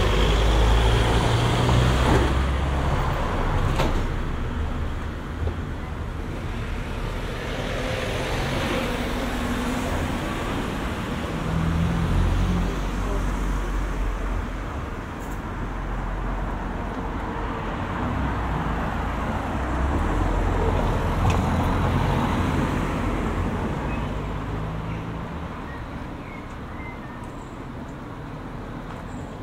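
Road traffic: several cars passing one after another, each rising and fading with engine and tyre noise, with a lull near the end.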